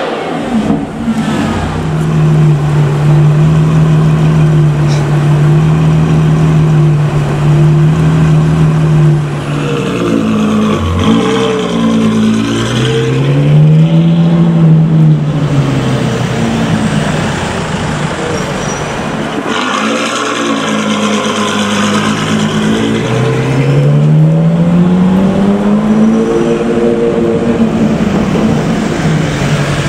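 Ferrari F12's V12 engine through a Novitec aftermarket exhaust, running at a steady low drone, then twice climbing in pitch as the car accelerates and easing back down.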